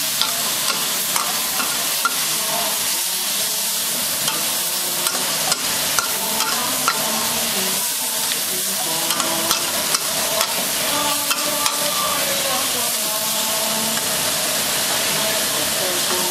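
Shredded luhao (Artemisia selengensis) stems sizzling in a stainless-steel wok, stir-fried with a metal spoon that clicks and scrapes against the pan every second or so.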